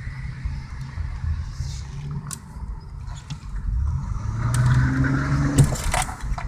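Straight-piped 3.6-litre V6 exhaust of a 2013 Chevrolet Camaro, heard from inside a following car: a low steady drone that swells into a rising rev about four seconds in and drops off suddenly about a second before the end.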